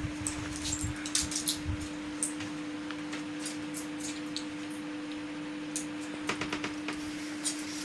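Light clicks and crackles of small objects being handled in the hands, in a cluster in the first couple of seconds and another about six seconds in. A steady electrical hum runs underneath.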